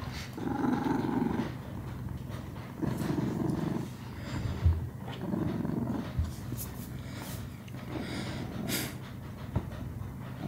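Domestic cat purring close to the microphone, in alternating phases about a second long, with a couple of soft knocks.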